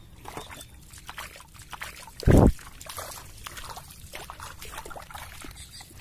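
Wading through shallow seawater on a rocky tidal flat: small splashes and trickles with each step, and a single loud low thump a little over two seconds in.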